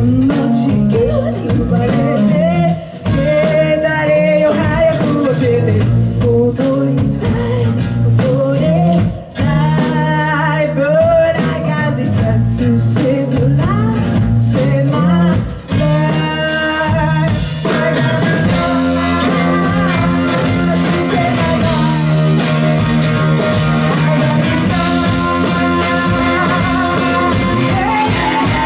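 Live blues-rock band playing: a woman singing lead over electric guitars and drums. The singing stops about two-thirds of the way through and the band plays on.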